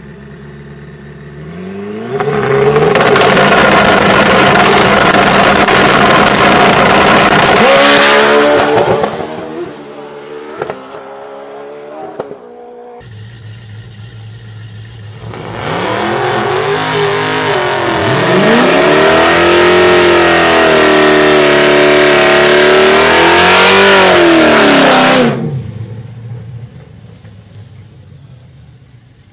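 A drag-racing motorcycle engine held at high revs for about six seconds, then dropping. After a cut, a Cadillac coupe's engine revs up and down at the start line and launches hard down the drag strip, its sound fading as it pulls away.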